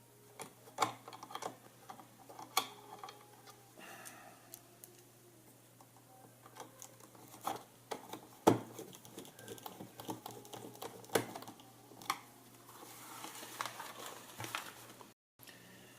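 Small screw being fitted and driven in with a hand screwdriver while the clock radio's parts are handled: irregular light clicks and taps, the loudest about halfway through.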